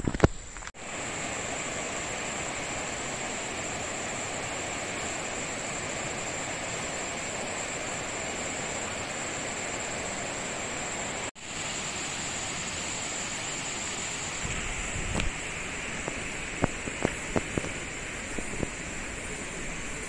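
Steady rushing of a flowing jungle river, an even noise with a thin high whine above it. It breaks off for an instant about eleven seconds in. In the last few seconds come scattered light knocks and footsteps on a dirt trail.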